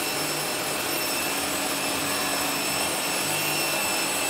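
Circular saw running with dust extraction while cutting an MDF panel: a steady whining hiss that does not change.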